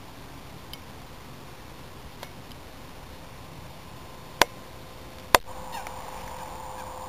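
Faint steady hiss broken by two sharp clicks a little under a second apart, just past the middle. The second click falls at a cut in the recording, after which a faint steady hum sets in.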